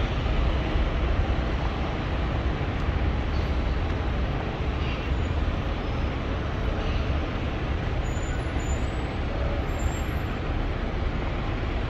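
Steady city street traffic noise: passing vehicles and their engines.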